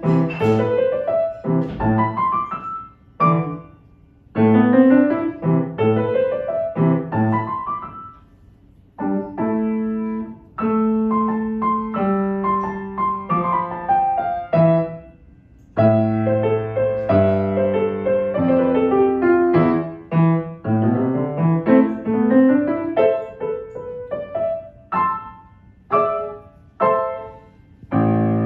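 A child playing an early-level Preparatory A piece on an acoustic grand piano. Quick rising runs of notes give way to held chords in the middle and then to rising runs again, with short pauses between phrases.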